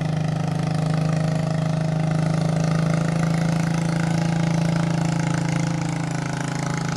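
An engine running steadily with a constant low hum, swelling slightly in loudness through the middle.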